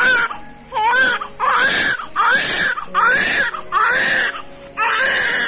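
Newborn baby crying just after birth: a run of about eight short wails, each rising then falling in pitch, with brief pauses between them.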